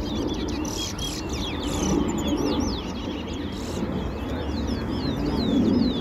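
Caged towa-towa (chestnut-bellied seed finch) singing a fast, continuous twittering song of quick whistled notes.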